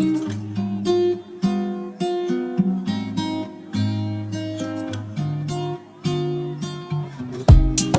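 Background music: an acoustic guitar plays a run of plucked notes and chords, with no singing. Loud sharp hits come in near the end.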